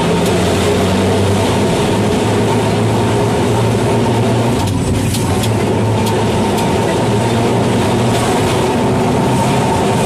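Calcutta electric tram running along street track, heard from the motorman's cab: a steady rumble and hum, with a few light clicks about halfway through.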